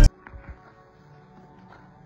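Loud background music cuts off abruptly at the start, leaving a faint, quiet room sound with a low hum and two soft clicks shortly after.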